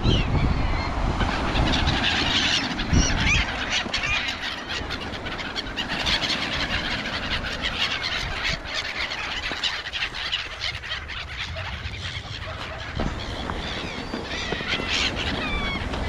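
A flock of gulls calling again and again as they crowd and circle around someone feeding them, over a low rumble of wind and surf.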